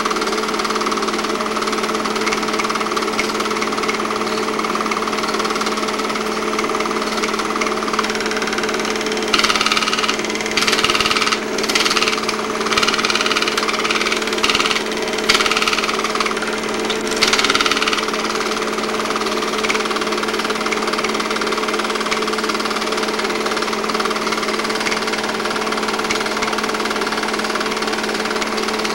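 8mm film projector running: a steady motor hum with a fast mechanical clatter. Between about 9 and 18 seconds in, a run of louder, irregular rattling bursts breaks in.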